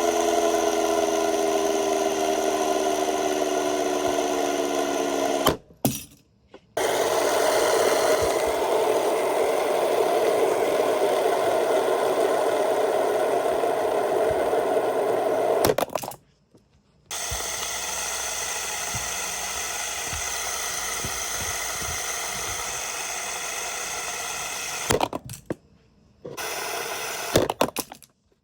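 Fidget spinner whirring steadily on its bearing, its hum sinking slowly in pitch at the start. The whir drops out abruptly to silence three times and then resumes.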